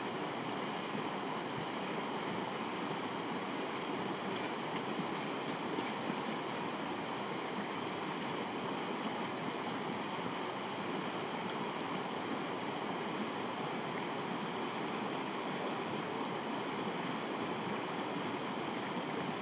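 Steady, unbroken rushing of running water, like a mountain stream.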